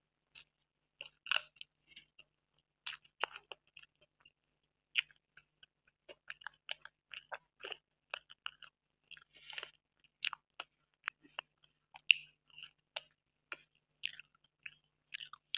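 A person chewing mouthfuls of soft cream-topped butterscotch cake close to the microphone, in many short, irregular wet clicks.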